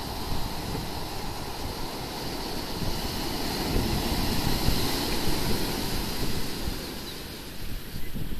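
Ocean surf breaking on a sandy beach, a steady wash that swells as a wave crashes about four seconds in, eases, then builds again near the end. Wind buffets the microphone underneath.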